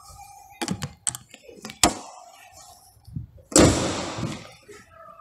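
A Geely Coolray's hood being closed: a few light clicks and knocks, then the hood slammed shut with a loud thud about three and a half seconds in.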